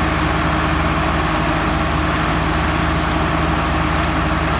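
Diesel engines of two tractors, a Swaraj 855 and a Mahindra Arjun 605, running steadily at a constant pitch while hitched back to back for a tug-of-war pull.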